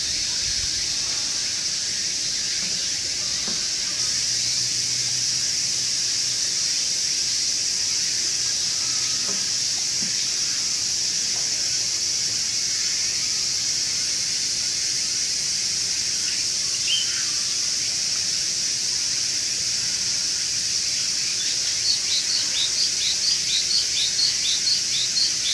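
A steady, high-pitched insect chorus of a summer evening, with a single short chirp past the middle and a quick run of short, high chirps, about four a second, near the end.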